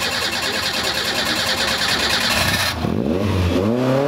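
Off-road competition vehicle's engine working hard: a dense mechanical whirr for the first two and a half seconds, then, after a short dip, the engine revs up and holds a steady high pitch.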